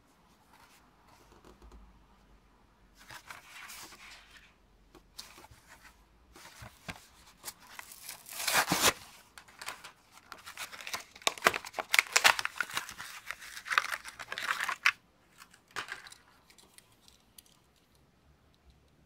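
A toy car's blister pack being torn open by hand: cardboard ripping and plastic crinkling in bursts, with one loud rip about nine seconds in and a run of crackling tears after it. It ends with a few light clicks.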